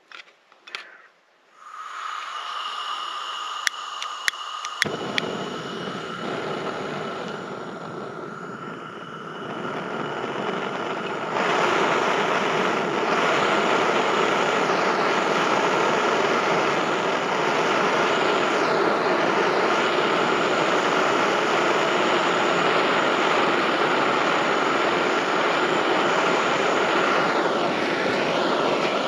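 Propane torch burning with a steady rushing roar and a thin whistle. A few sharp clicks come early, the roar fills out about five seconds in, and it steps up louder about eleven seconds in.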